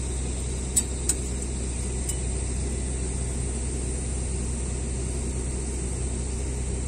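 Steady low engine drone, with two sharp clicks close together about a second in.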